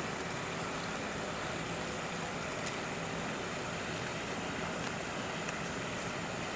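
Steady background noise with a faint low hum throughout and a few faint ticks, with no distinct event.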